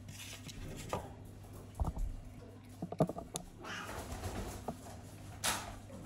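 A Bengal cat eating from a plastic bowl: scattered soft crunches and clicks, with a couple of brief rustles.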